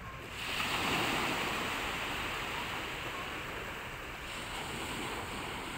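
Small waves washing up onto a sandy beach: the surf noise swells about half a second in, then slowly eases off.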